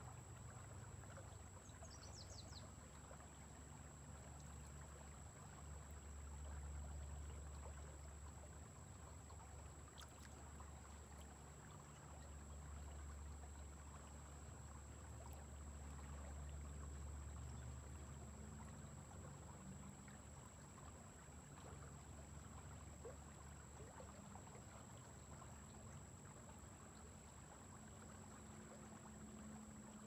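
Faint riverbank ambience: a soft, even wash of slowly flowing river water over a low rumble that swells and fades. A thin, steady high-pitched tone runs throughout, and a quick high chirp comes about two seconds in.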